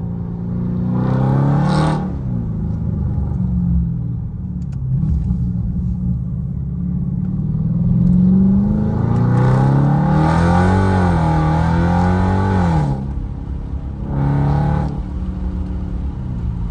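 Dodge Charger Scat Pack's 392 HEMI V8 with catless mid-pipes and a loud exhaust, heard from inside the cabin while driving. The engine note climbs briefly about a second in, makes a longer pull from about eight seconds in that rises and then falls over several seconds, and gives a short burst of revs near the end.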